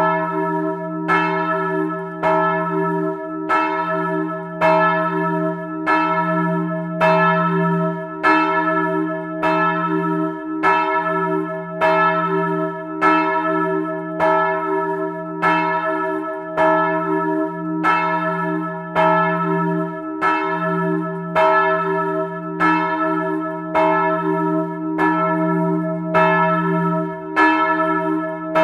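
Church bells swinging and ringing, with strokes coming evenly a little faster than once a second and a deep hum that rings on between them.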